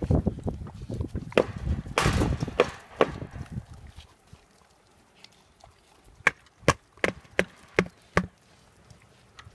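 A goat and dogs eating dry bread off concrete: crunching, scuffling and knocking for the first few seconds. Then, after a quieter stretch, a run of six sharp clicks, about two and a half a second.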